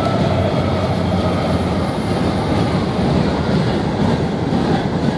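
Empty covered hopper cars of a CSX freight train rolling past, a steady rumble of steel wheels on the rails. The tone of the just-passed locomotives fades out over the first two seconds.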